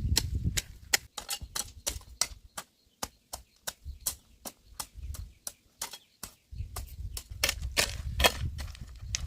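Dry corn stalks and husks snapping and crackling as corn is harvested by hand: a quick, irregular run of sharp cracks, with a low rumble underneath in the last few seconds.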